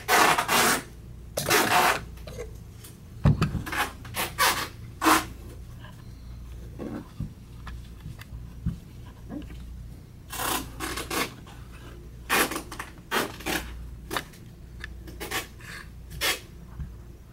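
A Zeiss microscope condenser being taken off and handled: two longer scrapes in the first two seconds, then a scattered run of short clicks and knocks as the metal and plastic parts are turned and set down.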